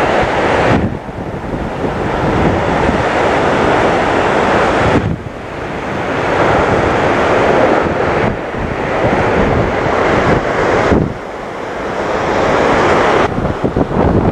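Storm-force wind gusts buffeting the camera microphone: a loud, continuous rush that surges and eases several times, every three to five seconds.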